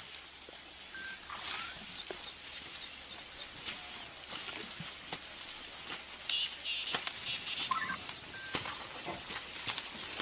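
Outdoor ambience around a herd of Asian elephants in roadside scrub: a steady hiss with scattered sharp snaps and crackles and a few brief high chirps.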